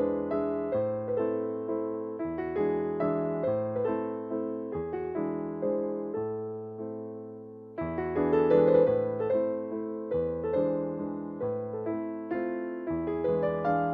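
Background music: a gentle piano or electric piano melody with a regular beat of notes, fading briefly about halfway through before starting again.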